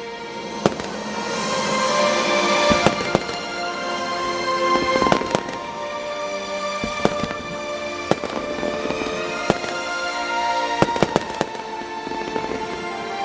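Fireworks going off, a string of sharp bangs and crackles scattered through, loudest about two to three seconds in, over steady background music.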